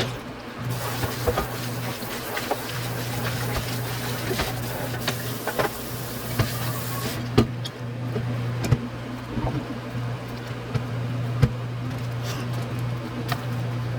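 Tteokbokki being cooked in a pan: scattered clicks and scrapes of a utensil over a steady low hum, with a hiss through roughly the first half that cuts off about seven seconds in.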